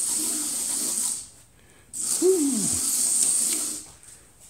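HO slot car running on a routed MDF track with wire rails: its small electric motor gives a high, hissing buzz that cuts out about a second in, starts again half a second later and dies away near the end. A short falling tone is heard soon after it restarts.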